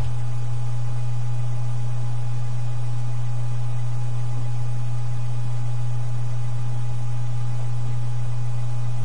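A loud, steady low hum with an even hiss over it, unchanging throughout.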